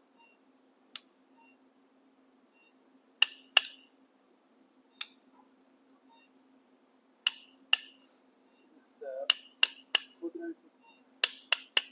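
A surgical mallet tapping a steel impactor: about a dozen sharp metallic clinks, singly and in quick twos and threes. It is seating the bent ends of the K-wires into the olecranon during tension band wiring.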